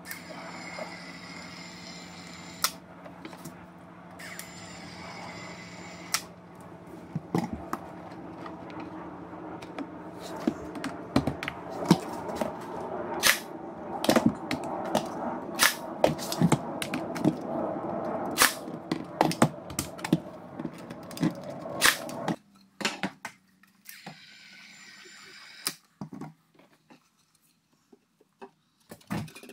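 A Ryobi 18V battery caulk and adhesive gun whirs in two short runs as it pushes out construction adhesive. Then a cordless 23-gauge pin nailer fires about twenty sharp snaps, irregularly spaced, pinning the trim rails in place.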